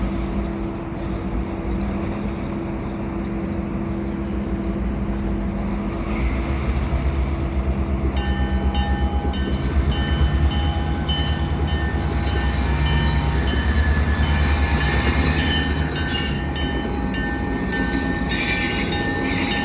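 EMD GP38-2 diesel-electric switcher locomotive running, its 16-cylinder two-stroke engine making a steady low throb that swells and pulses as it works, starting about 8 seconds in. From about 8 seconds in, steady high-pitched tones sound over the engine.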